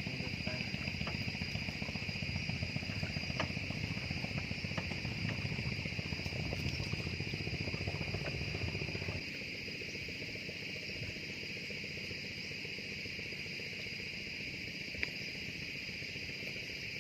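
Steady chorus of chirring insects, such as crickets, with a low rumble under it that stops about halfway through.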